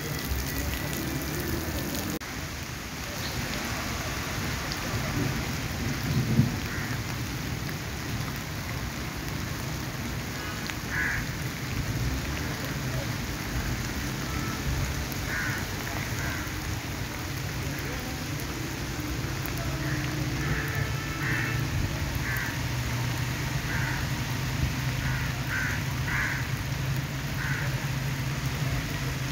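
Steady rain falling on a wet platform and railway tracks. Short bird calls come several times in the second half over a low rumble.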